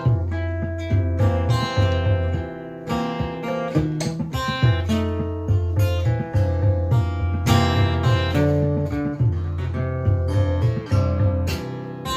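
Music: acoustic guitar strummed and picked in a regular rhythm over a steady low bass.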